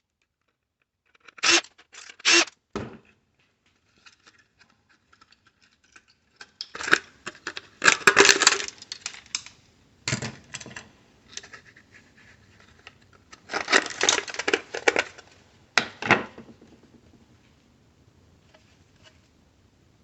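Parts of a dental power supply unit being handled and taken apart: three sharp knocks near the start, then several bursts of clattering, rattling and scraping, fading to faint handling noise near the end.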